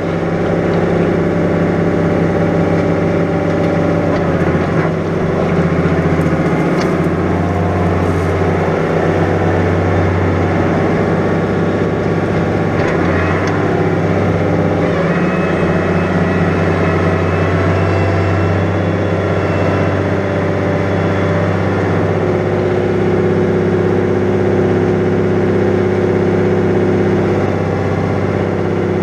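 New Holland 100-90 tractor's diesel engine running steadily under load while ploughing wet, heavy ground. Its note shifts slightly a few times in the first half.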